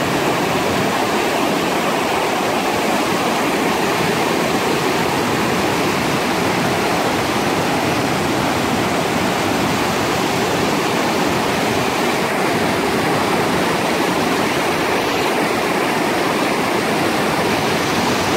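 River water rushing and churning over rocks in shallow rapids, a steady, loud rush that never lets up.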